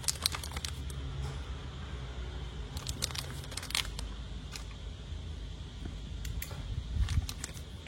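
Plastic wrapping crinkling as a lighter is handled, with scattered small sharp clicks.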